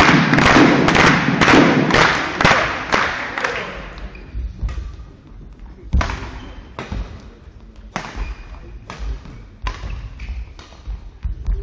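Crowd clapping in a steady rhythm of about two claps a second, dying away after about four seconds. Then a badminton rally: sharp cracks of rackets hitting the shuttlecock, roughly one a second, with thuds of players' shoes on the court floor.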